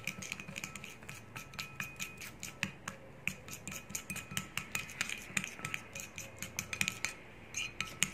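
A metal spoon stirs a thick yeast-and-yogurt paste in a ceramic bowl, clinking against the bowl's sides several times a second. The bowl rings briefly after the strikes.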